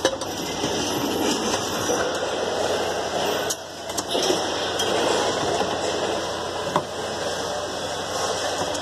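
Steel tube parts of a children's tricycle frame being handled and fitted together, giving a few light metal clicks and knocks over a steady rushing background noise.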